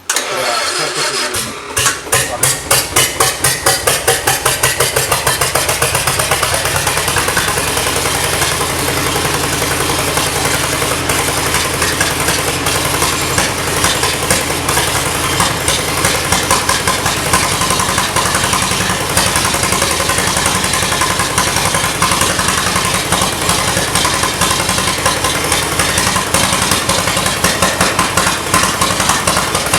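Loud 1951 four-cylinder 5,200 cc gasoline engine from a Whitcomb narrow-gauge locomotive starting up about two seconds in, then running with pulsing firing beats that even out into a steady run. It is being run again after 13 years out of use.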